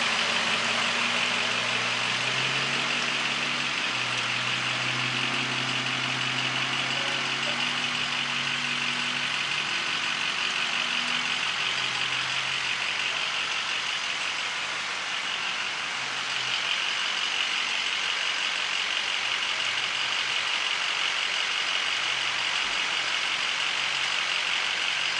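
Heavy tropical rain pouring down in a steady hiss, with a vehicle engine idling low underneath for roughly the first half before fading out.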